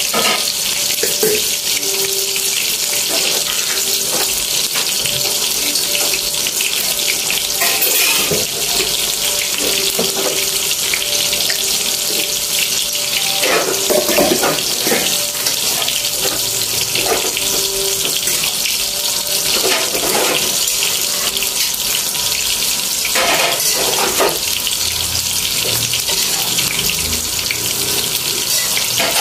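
Vegetables and noodles sizzling in a wok: a steady, loud hiss, with now and then the scrape and clink of a metal spatula and fork against the pan.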